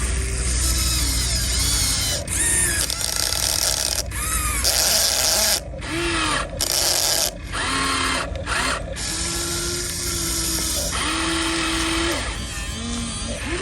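Electric motors and gearboxes of Huina radio-controlled excavator and dump truck models whirring. Their whine rises and falls in short runs and stops and starts again and again, as the machines are driven and worked.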